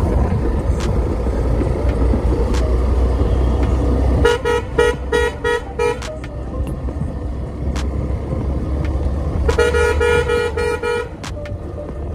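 Aftermarket horn on a Hero XPulse 200 4V motorcycle sounded in quick repeated beeps, in two bursts: about four seconds in and again near the end. A steady low engine rumble runs underneath.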